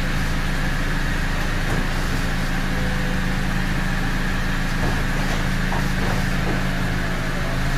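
Mercedes SLK R171 folding hard-top roof closing by itself: its hydraulic pump hums steadily and stops abruptly near the end as the roof finishes. The car's engine idles underneath.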